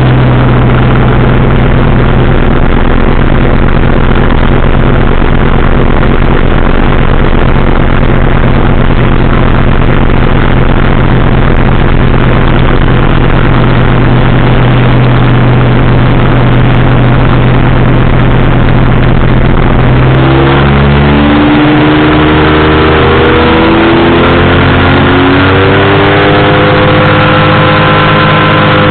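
Powered parachute's engine and propeller running loudly at a steady pitch, then about two-thirds of the way through the pitch shifts and wavers as the throttle changes.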